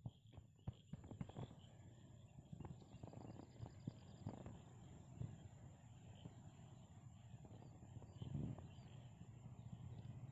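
Faint outdoor evening ambience with a few small bird chirps over a low rumble. A thin steady high tone sits under it, and there are several sharp clicks in the first second and a half.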